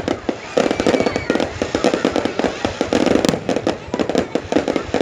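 Fireworks going off: dense, rapid crackling and banging with hardly a break, and a short whistling glide near the middle.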